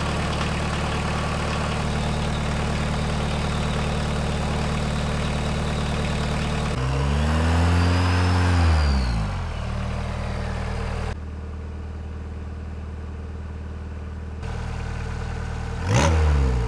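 VW Rabbit turbodiesel engine running at a steady idle. About seven seconds in it is revved once and drops back, with a faint whistle rising and falling with the revs. It then idles more quietly, with another short rev near the end.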